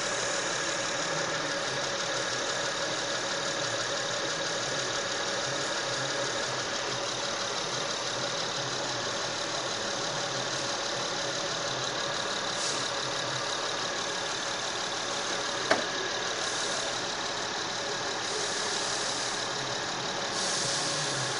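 Car engine idling steadily, with one sharp click about two-thirds of the way through.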